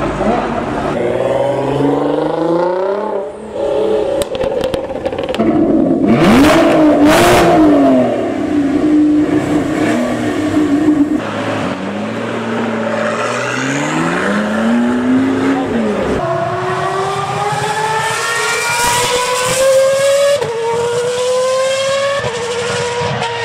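A run of supercar engines revving and accelerating one after another: a Mercedes-AMG GT, then a McLaren with a rising rev as it pulls away. Near the end an open-wheel racing car accelerates hard through the gears, its pitch climbing in steps with a short drop at each upshift.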